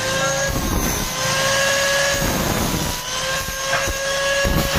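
Electric power tool motor running with a steady whine, its pitch dipping slightly a few times.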